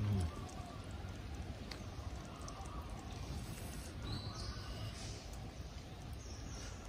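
Steady outdoor forest ambience with faint bird chirps in the middle and near the end, and a brief low voiced sound at the very start.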